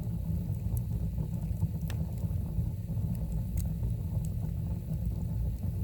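Wood fire burning with a steady low rumble and a few sharp crackles.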